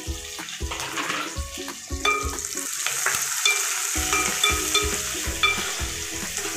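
Chopped onions, curry leaves and dried red chillies sizzling in hot oil in an aluminium pan while a spatula stirs them. The frying gets louder about two seconds in.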